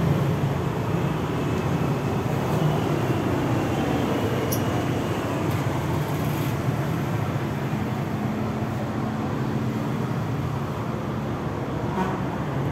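Steady road and traffic noise, with a vehicle's engine hum standing out for a few seconds past the middle.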